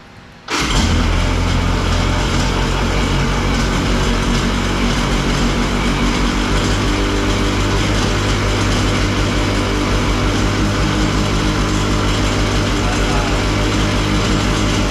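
Freshly rebuilt Kawasaki 750 two-stroke jet-ski engine, bored to 800, running steadily; it comes in suddenly about half a second in. It is being run in its first heat cycles to bring the new pistons up to temperature and seat them.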